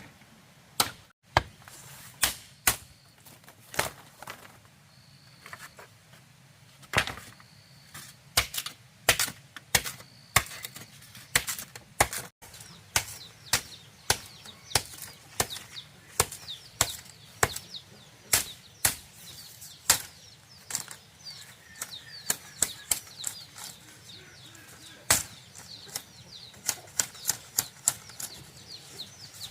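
A hand tool repeatedly striking bamboo: sharp, irregular knocks at about one to two a second. Faint bird chirps sound in the second half.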